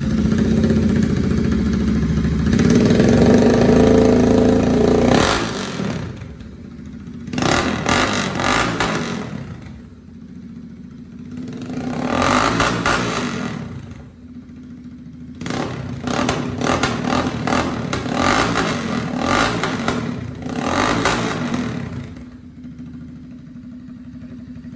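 Royal Enfield Continental GT 650's parallel-twin engine through a loud free-flow exhaust, revved hard for about five seconds, then blipped in three more bursts with a steady idle between. Exhaust pops and crackles come in with the revs.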